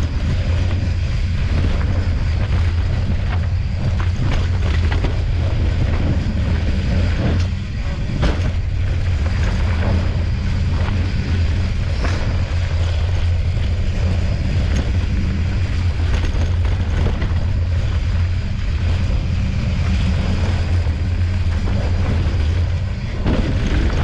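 Wind buffeting the camera microphone on a fast mountain-bike descent, over the rumble of tyres rolling on loose dirt and rock, with scattered knocks and rattles of the bike over bumps.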